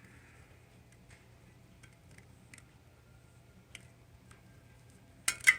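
Faint, scattered small plastic clicks as a clip-on LED spoke light is worked onto bicycle wheel spokes, followed by a brief, much louder burst of noise near the end.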